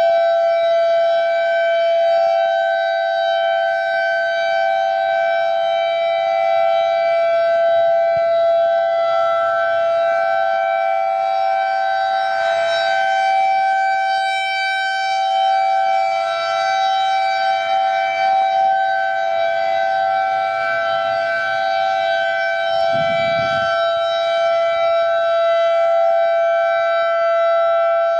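Outdoor civil-defense warning sirens, an ASC I-Force and a Federal Signal 2001-SRN, sounding together on a steady tone. Two close pitches are held level without rising or falling.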